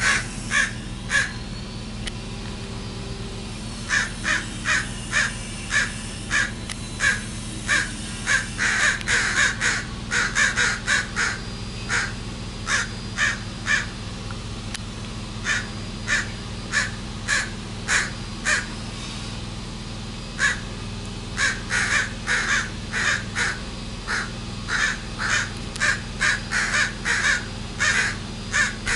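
Crows cawing over and over, in quick runs of short caws with brief pauses between runs: territorial calls from crows nesting in the yard.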